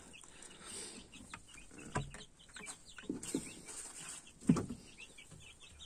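Chickens clucking now and then, the loudest clucks about two seconds and four and a half seconds in, over faint rustling of straw and fur in a rabbit nest.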